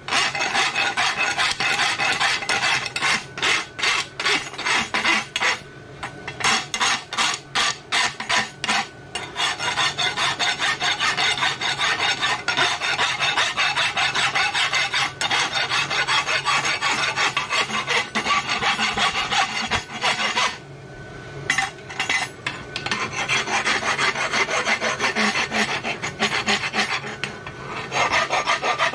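A file scraping metal in quick repeated strokes. The strokes are separate at first, about three a second, then run almost continuously, with one short pause about two-thirds of the way through.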